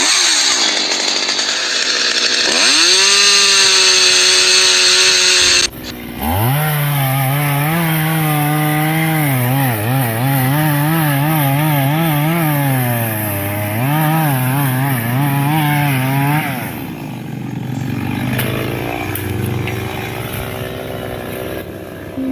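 Two-stroke chainsaw running at high revs, its pitch climbing and then wavering up and down as the load on the chain changes. It cuts off abruptly near six seconds and starts again, then gives way to a quieter, rougher noise after about sixteen seconds.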